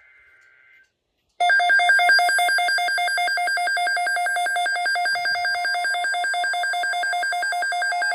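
A weather radio receiver's alert alarm: a loud, fast-pulsing electronic warble that starts about a second and a half in, signalling an incoming NOAA Weather Radio alert for a tornado watch. Before it comes the faint two-tone warble of the end of an EAS data burst.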